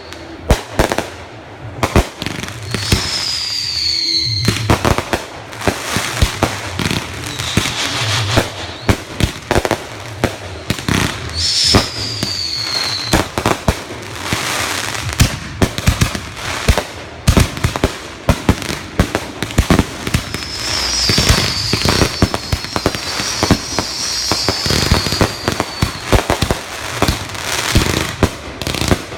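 Consumer fireworks going off in quick succession: sharp bangs, pops and crackling. High whistles fall in pitch about three seconds in and again about eleven seconds in, and several whistles together come around twenty seconds in.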